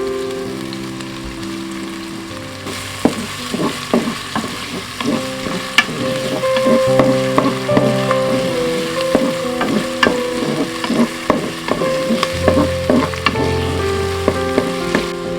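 Food sizzling as it fries, stirred with a utensil that clicks and scrapes against the cooking pot in irregular strokes from about three seconds in.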